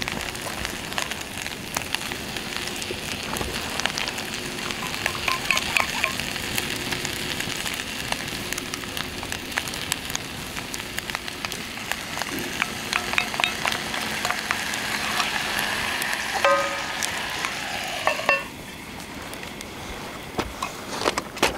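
Steak and vegetables sizzling in a cast iron skillet over a wood fire, with small crackles and pops. A sauce is poured into the pan about halfway through. Near the end there is a short metallic ringing scrape as the cast iron lid is set on, and after it the sizzle is quieter.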